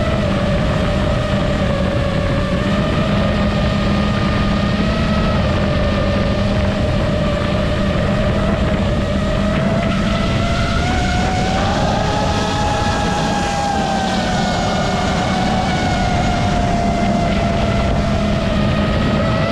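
FPV quadcopter's electric motors and propellers whining steadily in flight. The pitch rises a little about twelve seconds in, then eases back down as the throttle changes.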